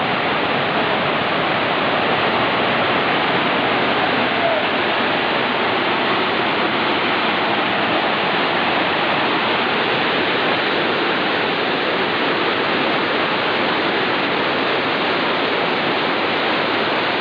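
Rushing water cascading over rocks, a steady, unbroken roar.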